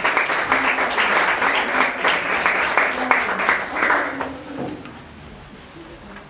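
Audience applauding, a dense fast patter of many hands clapping that dies away about four seconds in.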